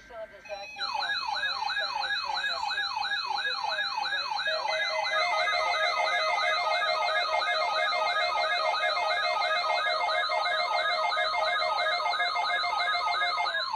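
Electronic emergency alert siren warbling, rising and falling quickly about three times a second, with steady alert tones held underneath. More steady tones join about four and a half seconds in, and the sound stops abruptly near the end.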